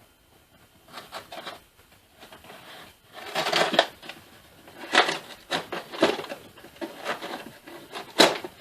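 A shipping package being opened by hand: irregular bursts of rustling and tearing packaging, with a sharp snap near the end.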